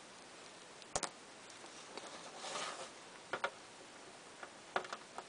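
Faint clicks and taps of a hard plastic vintage Kenner action figure being handled and set down on a display base, with a short rustle in the middle. There is a sharp click about a second in, and small clusters of taps near the end.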